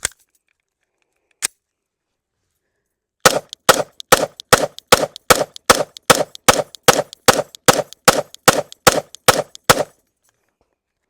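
Glock 45 9mm pistol fired in a steady rapid string of about twenty shots, roughly three a second, emptying the magazine. Two small clicks come first.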